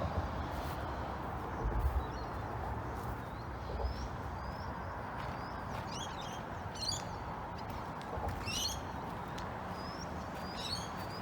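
Birds calling: a string of short, high, rising chirps and three louder warbled calls, over a steady background hiss.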